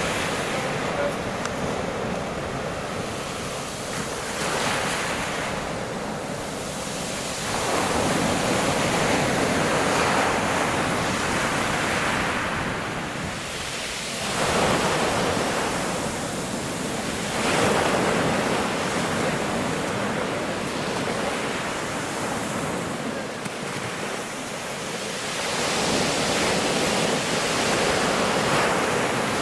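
Rough sea waves breaking on the shore, the surf surging and easing back again and again.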